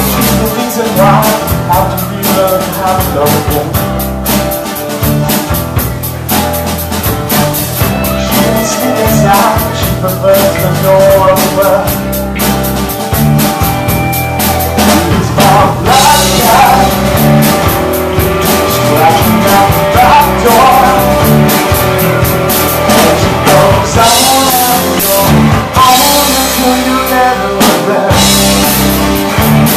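Live rock band playing: a singer singing over electric guitars, bass guitar and a drum kit keeping a steady beat.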